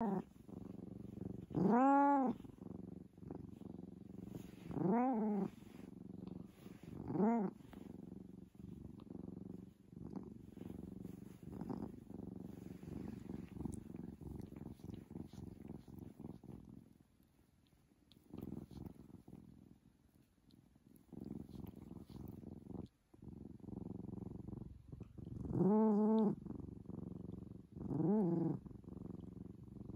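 Tabby cat purring steadily, with five short meows that each rise and fall in pitch: three in the first eight seconds and two near the end. The purr drops away for a few seconds past the middle.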